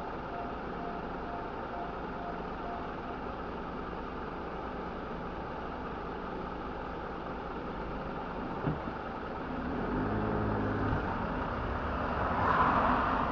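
Car driving, heard from inside the cabin: a steady road and engine hum, a short sharp click about two-thirds of the way in, then a louder engine note and a brief rush of noise near the end.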